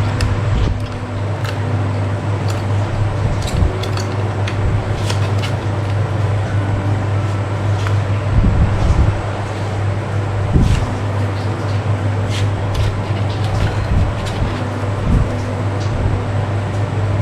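Steady low machine hum, like a fan or air conditioner, with small scattered clicks and taps of hand tools on screws and plastic parts as a drone is taken apart.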